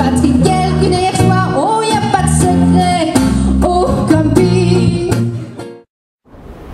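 Live pop song with singing over guitar and bass accompaniment, fading out about six seconds in. After a brief gap, a rushing noise begins near the end.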